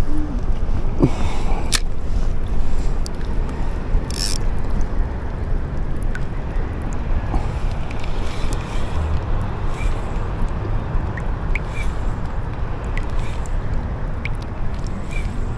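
Steady wind buffeting the microphone, a low rumbling hiss, with a couple of sharp clicks about two and four seconds in and a few faint ticks later on.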